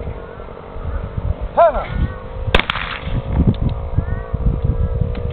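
A single shotgun shot about halfway through, sharp and the loudest thing heard, with a short voice call a second before it. A steady hum runs underneath.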